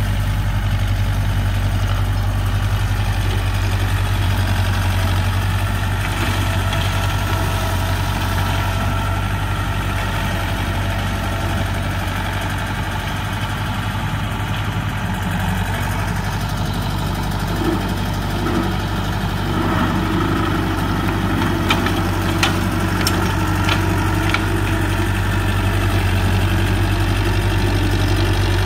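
Tractor diesel engine running steadily under load while a rear-mounted flail mulcher shreds grass and brush. A few sharp clicks come about three-quarters of the way through.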